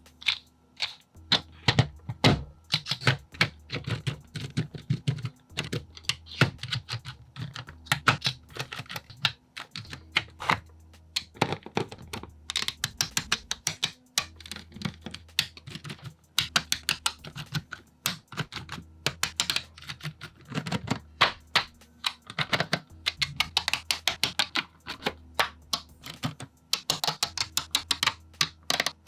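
Rapid, irregular clicks and taps of small plastic model-kit parts and screws being handled and fitted together. The background hum changes abruptly every second or two where short clips are cut together.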